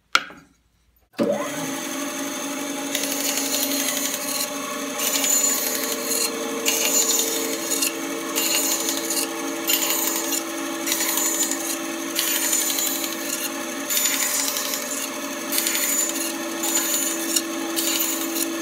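Bandsaw running and cutting a series of short relief cuts into a timber board: a steady motor and blade hum with a rasping cutting noise that comes and goes as each cut is started and backed out. It starts suddenly about a second in.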